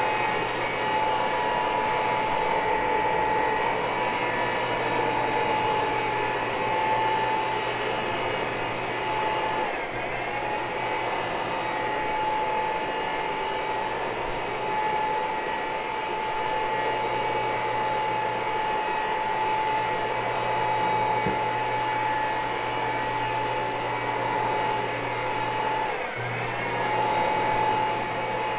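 Vacuum motor of carpet-cleaning equipment running steadily with a held whine. Its pitch dips briefly twice, about ten seconds in and near the end.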